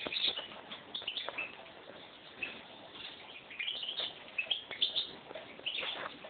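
Caged hybrid finch (mixto) singing: short twittering phrases of high chirped notes coming in irregular bursts with brief gaps between them.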